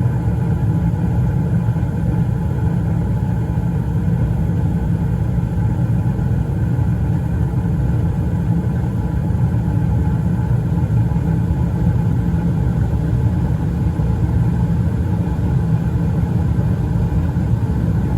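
Bryant Legacy gas furnace running, a steady low rumble.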